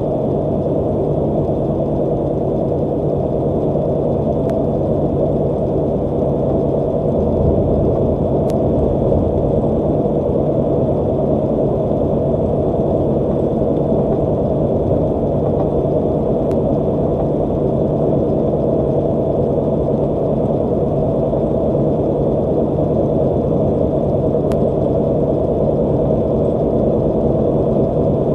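Steady engine drone and road noise inside a semi-truck's cab cruising at highway speed, with a constant low hum.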